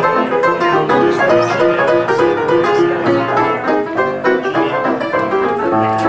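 Ragtime played on an old upright piano, a busy melody over a regular, repeating bass.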